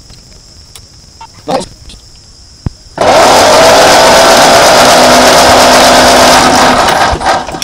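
1939 Ford 9N tractor's four-cylinder engine being cranked by its starter for about four seconds without catching, starting abruptly about three seconds in and stopping near the end. It is being cranked while the crew hunts for an ignition fault.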